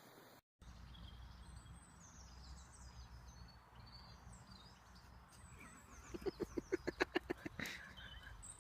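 Small birds chirping and twittering over a low steady rumble, with a quick run of about a dozen short sharp pulses about six seconds in.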